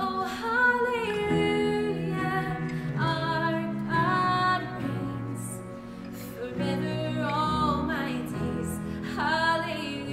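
Women singing a slow worship song in harmony with long held notes, accompanied by acoustic guitar.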